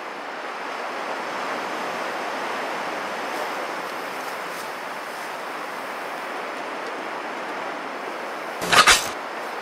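Sea surf washing steadily against a rocky shore. A brief loud double thump comes near the end.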